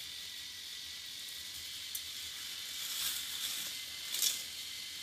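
K'nex roller coaster's small battery-powered motor whirring steadily with a thin whine as it drives the plastic chain lift, with a few sharp clicks and rattles from the car on the plastic track, the loudest about four seconds in.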